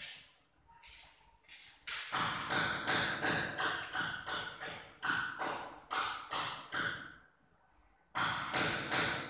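Rapid, evenly spaced knocks or taps, about three a second, that pause briefly about a second in and again near the end.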